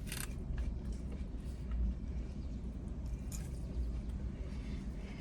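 Steady low rumble with a few faint, short clicks.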